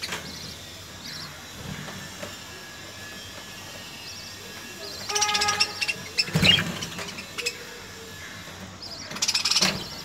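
Budgerigar chicks calling as they beg to be fed by the hen, in two louder bursts around the middle and near the end, with faint high peeps in between.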